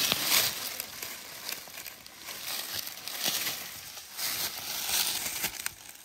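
Dry fallen leaves and forest-floor litter rustling and crackling as they are disturbed, in irregular bursts.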